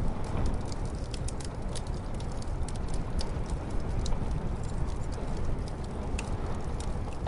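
Wood fire crackling, with frequent sharp, irregular pops over a steady low, muffled rumble of storm wind.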